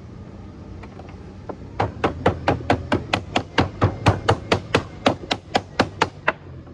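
Hand tool beating a sheet of code 4 lead on a timber bench: a rapid, even run of about twenty sharp strikes, four or five a second, starting about two seconds in and stopping shortly before the end.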